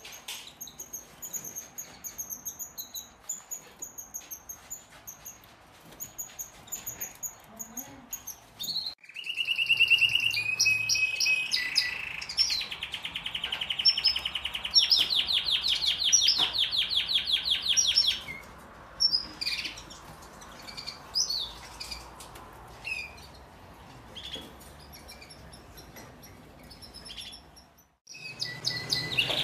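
Canary song from an aviary. Soft, repeated high chirps come first. About a third of the way in, a loud run of fast rolling trills starts and lasts roughly nine seconds. Scattered chirps follow.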